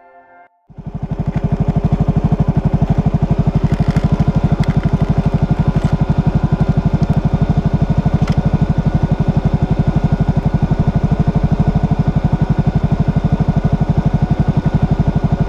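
2007 Suzuki Burgman 400 scooter's single-cylinder four-stroke engine idling steadily with an even, rapid pulsing beat; it cuts in suddenly under a second in.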